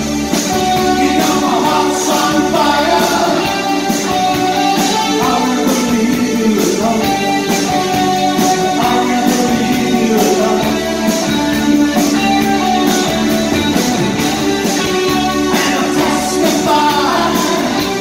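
Live new wave band playing: electric guitars, synth keyboard and drums, with a lead singer over them.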